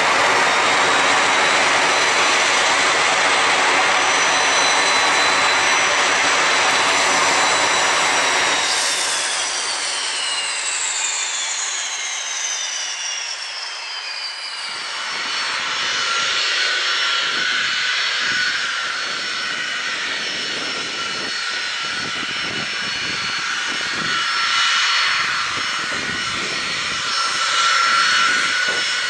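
Jet Provost's Viper turbojet whining steadily at idle, then shut down about nine seconds in, its whine falling in pitch and dying away over several seconds. After that, the quieter whine of Jet Provosts taxiing, swelling near the end, with gusts of wind rumbling on the microphone.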